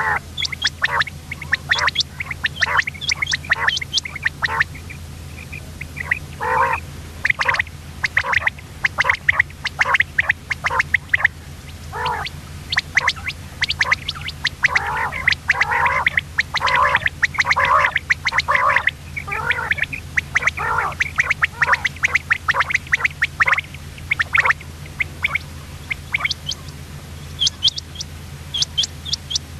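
Common quail calling: quick, irregular runs of short, sharp notes, some lower and some higher, with a couple of brief pauses, over a steady low hum.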